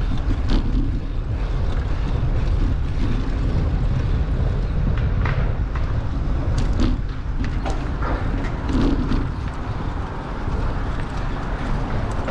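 Bicycle riding along a paved pathway: a steady low rumble of wind on the microphone and tyre noise, with scattered clicks and rattles from the bike.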